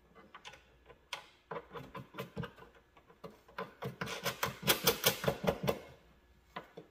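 Thumb nuts being turned by hand to tighten the LED light assembly onto the grinder: a run of short, quick scraping and rubbing clicks. They are scattered at first and come thickest and loudest around four to six seconds in.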